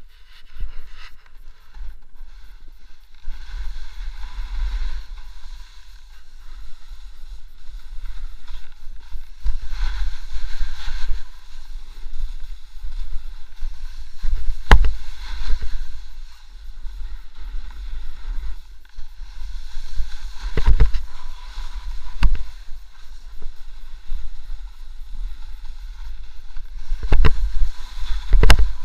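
Wind rumbling on an action camera's microphone while riding down a snow slope, with the hiss and scrape of sliding over crusty snow that swells and fades in waves. A few sharp knocks come from jolts over bumps, the loudest around the middle and near the end.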